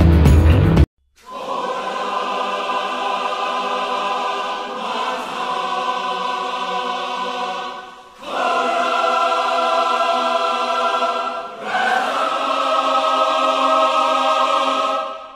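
Background music: a loud beat-heavy passage cuts off a little under a second in, then sustained choir-like chords are held in four long phrases, each swelling and dipping in turn.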